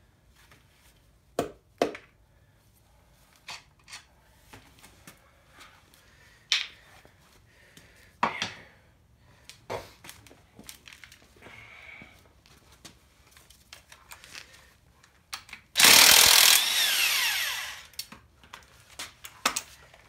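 Scattered metal clinks and clanks of hand tools and engine parts, then about sixteen seconds in a handheld power tool runs loudly for about two seconds before winding down.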